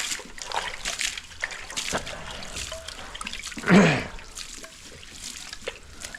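Water splashing and dribbling as a dirty livestock waterer is emptied and cleaned out by hand, with small knocks throughout and one louder burst about four seconds in.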